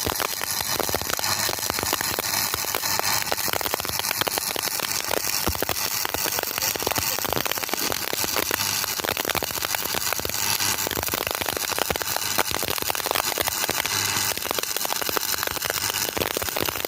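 Electric arc welding: a steady crackling sizzle of the arc with dense, irregular pops and clicks.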